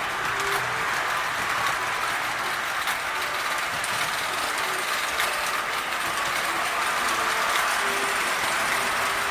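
Three-rail O-gauge toy trains running on their track: a steady whir of small electric motors and gears with a light clatter of wheels over the rail joints.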